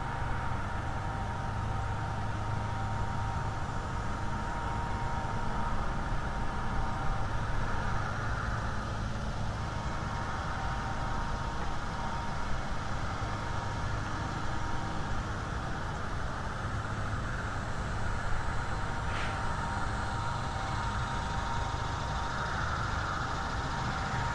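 Steady low engine-like drone with a few faint steady tones over it, like a distant idling motor. One brief sharp click comes near the end.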